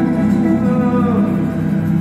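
Acoustic band playing live: upright bass, violin and acoustic guitar holding sustained notes, with one note sliding down in pitch about a second in.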